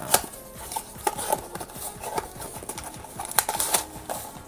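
Small cardboard blind box being opened by hand: a run of irregular sharp clicks, scrapes and crinkles as the tab and flaps are pulled open and the foil-wrapped toy is worked out. Faint background music underneath.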